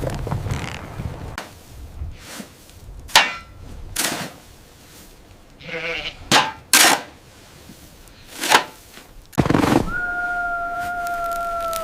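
Several sharp cracks, with a sheep bleating briefly about halfway. Near the end a wolf begins a long howl, holding a steady pitch and sagging slightly.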